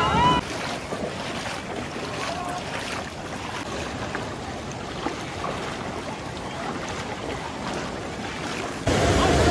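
Feet wading through shallow floodwater, with water sloshing and splashing at the steps and wind on the microphone. Near the end it cuts suddenly to the louder, steady rush of flood water churning over rocks.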